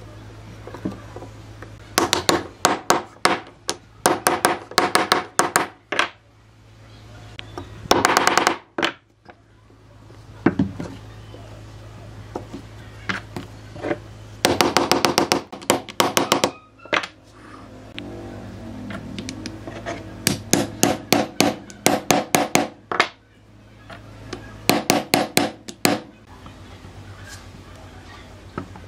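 Hand tool striking wood in quick clusters of sharp knocks, several strikes a burst, with pauses between bursts, over a steady low hum.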